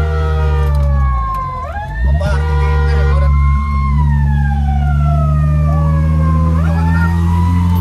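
Fire-brigade vehicle's electronic siren wailing: each tone slides slowly down in pitch and then jumps sharply back up, about two seconds in and again near the end, over a steady low drone.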